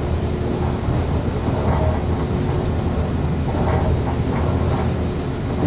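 Passenger train running at speed, heard from inside the carriage: a steady low rumble of wheels on the rails, with a faint steady hum.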